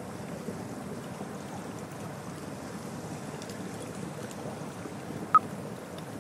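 Steady soft rushing noise like wind or flowing water. Near the end, one short, sharp electronic beep from the workout countdown timer, marking the last seconds of the break; the beeps go on once a second.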